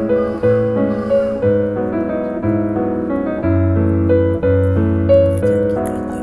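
Background music: a piano tune with a bass line, played at a steady pace.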